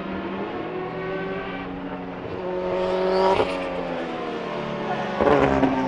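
Nissan Skyline Super Silhouette race car's turbocharged four-cylinder engine accelerating, its pitch rising to a peak about three seconds in and then dropping off. A loud rough burst comes near the end.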